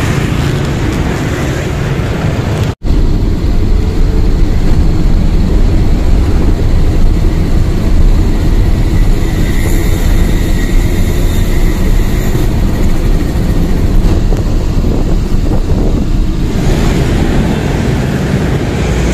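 Steady rumble of a moving angkot minibus heard from inside its cabin: engine and road noise, cut off for an instant about three seconds in.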